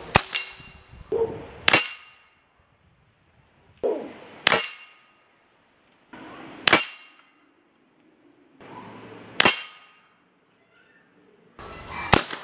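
Six shots from a home-built .30 calibre air rifle, each a sharp crack with a brief metallic ring, roughly two to three seconds apart; the first two come close together.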